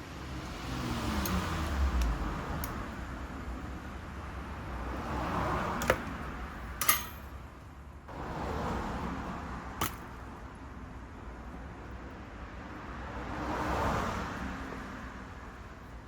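Traffic going by, swelling and fading four times, with a few sharp metal clicks and one short clink from small carburettor parts being handled during disassembly.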